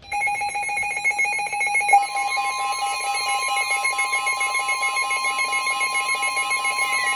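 Emergency Alert System warning alarm: loud electronic alert tones with a rapid pulsing pattern. A second steady tone joins about two seconds in, and near the end a tone begins to slide down in pitch.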